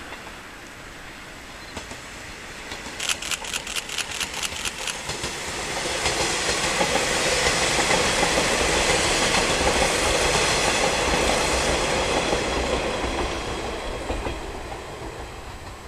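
A four-car train of old KiHa 20 and KiHa 22 diesel railcars passing: a quick run of clickety-clack from the wheels over rail joints, about five clacks a second, as it nears, then the DMH17 diesel engines running loud as the cars go by, fading away near the end.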